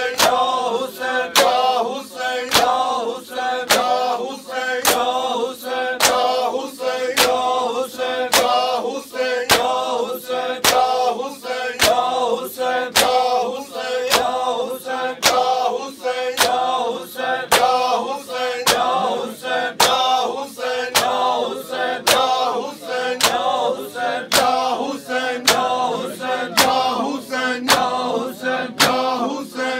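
Crowd of men chanting a lament together, over a steady rhythm of sharp bare-hand slaps from chest-beating (matam), about one and a half strikes a second.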